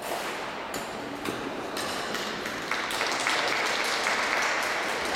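Audience applauding a figure skater during her program, the clapping swelling and loudest from about halfway in.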